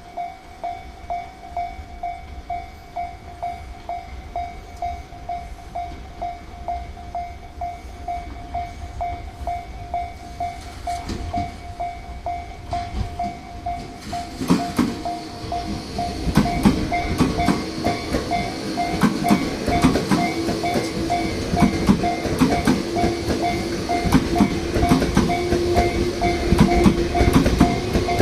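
Japanese level-crossing warning bell ringing in an even, steady ding-ding rhythm. About halfway through, a Tobu Railway train arrives and runs past over the crossing, its wheels clattering over the rail joints, getting louder.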